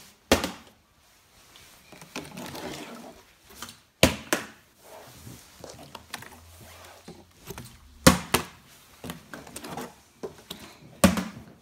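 Plastic water bottle flipped and landing with a thud four times, about four seconds apart.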